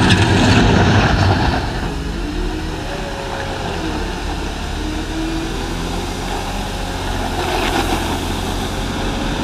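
Wheel loader's diesel engine working, its revs rising and falling; louder in the first second and a half, with a brief hiss swelling near the end.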